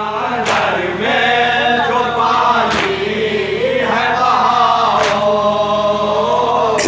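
A man chanting through a microphone in long, held notes that rise and fall, with a sharp slap about every two seconds.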